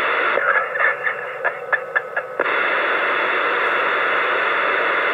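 CB radio static hiss coming through the receiver's speaker, with a weak, choppy transmission breaking in for about two seconds near the start before the steady static returns.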